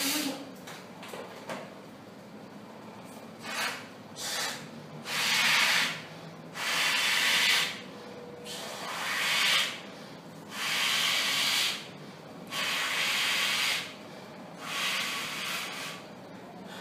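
A latex balloon being blown up by mouth: breaths blown into it one after another, first two short puffs, then six long breathy blows of about a second each, every two seconds or so, with quiet pauses to inhale between.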